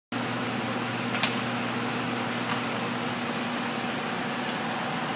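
Steady fan-like rushing background noise with a low hum, and a faint click about a second in.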